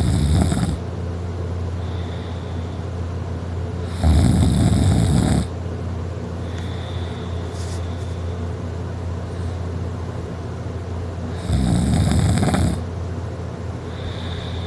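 A man snoring loudly while asleep on his back. There is one rough snore of about a second and a half some 4 s in, another about 11.5 s in, and the tail of one right at the start, with a steady low hum between them.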